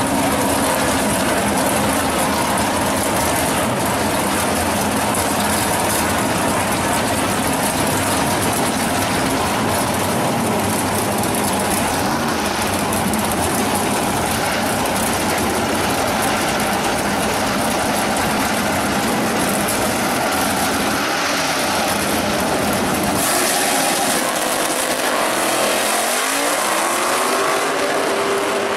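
1979 Chevrolet Malibu G-body drag car and a second drag car with their engines running loudly at the starting line. About three-quarters of the way through they launch, and the engines climb in pitch as the cars accelerate away down the strip.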